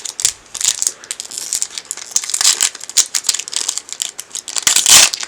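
A sealed trading card pack's wrapper crinkling and crackling as it is handled and torn open: a quick string of short crackles, the loudest one near the end.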